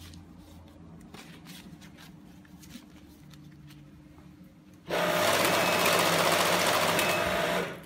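RJ-660(A) banknote sorting machine feeding and counting a stack of notes: a loud, dense, even whirring riffle of paper that starts suddenly about five seconds in and cuts off about three seconds later as the stack runs out. Before it, faint rustling of banknotes being handled.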